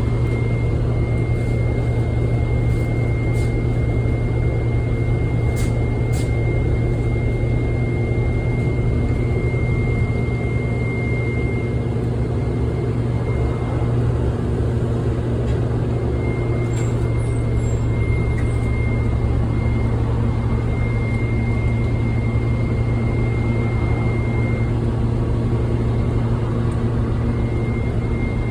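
Orion diesel city bus heard from inside: a steady low engine drone with the loud cooling fan running, and a thin, steady high whine over it. A few faint clicks or rattles come through, around six seconds in and again around seventeen seconds.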